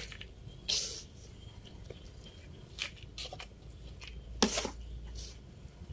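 Hands working with a plant pot, soil and rhizomes: a few short, separate rustles and scrapes, the loudest about four and a half seconds in.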